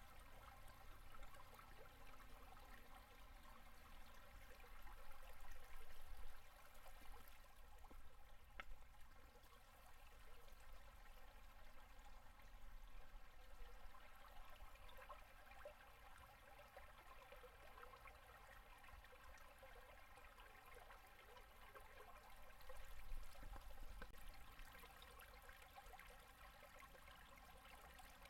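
Faint running water: a shallow river at low winter flow gurgling over and under its ice, briefly louder twice.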